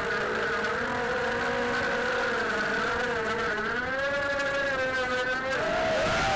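Racing quadcopter's electric motors and propellers whining, the pitch rising and falling with the throttle: it climbs around the middle and dips briefly near the end. Heard through the drone's onboard camera microphone.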